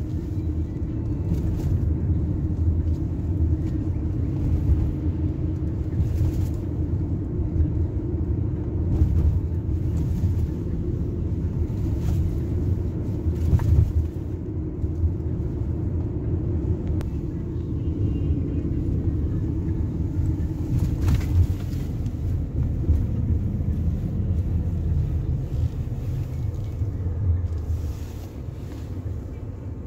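Car driving, heard from inside the cabin: a steady low rumble of engine and road noise, getting a little quieter near the end.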